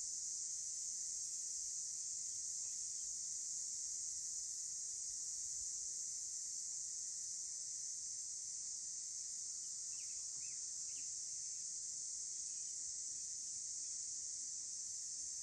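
Steady, unbroken chorus of insects, high-pitched and even. A few short chirps stand out briefly about ten seconds in.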